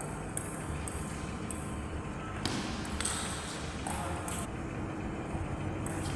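Table tennis rally: the celluloid ball clicking off the paddles and the table in a run of sharp taps, about two a second for the first few seconds.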